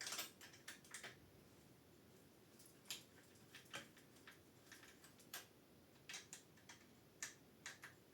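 Faint, irregular clicks and taps from handling the small parts of a 3D-printed derailleur cable connector as it is put back together, about a dozen scattered over several seconds.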